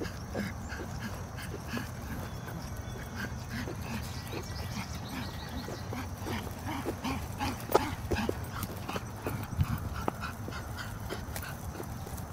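Pug puppy making a string of short, soft, irregular vocal sounds, over a steady low hum.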